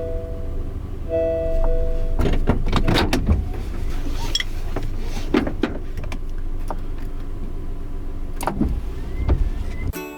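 Steady low rumble of a vehicle on the move, heard from inside, with scattered knocks and clicks. A few held piano-like music notes play over it during the first second or two, and the rumble cuts off just before the end.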